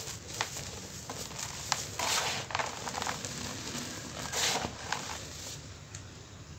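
Dry cement clumps crushed between the fingers and sifted onto a heap of powder: gritty crackling and soft hissing of falling powder. There are two louder pours, about two and four and a half seconds in, and it quietens near the end.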